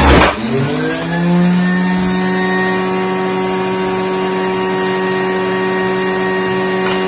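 Electric centrifugal juicer motor: a brief grinding as food is pushed down the chute. Its pitch then climbs back up over about a second and settles into a steady high whine as the motor spins freely with nothing in the chute.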